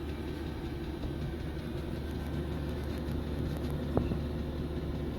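Diesel air heater running steadily just after start-up, its fan and burner giving a constant hum. One sharp click about four seconds in.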